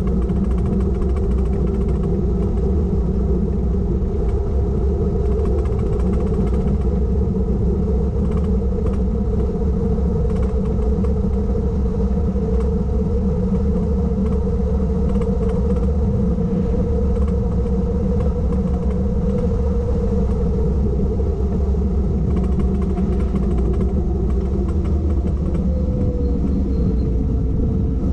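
Onboard sound of a vehicle cruising at an even pace: a steady engine drone over low road and tyre rumble. The engine note shifts near the end.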